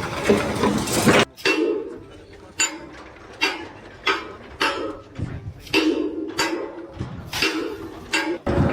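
Repeated metallic clanks, about a dozen sharp strikes at an uneven pace, each ringing briefly.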